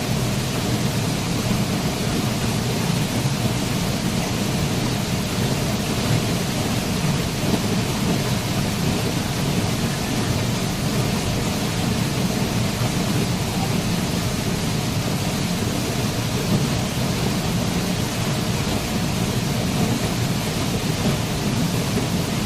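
Waterfall: a steady rush of falling water with a deep, even rumble underneath.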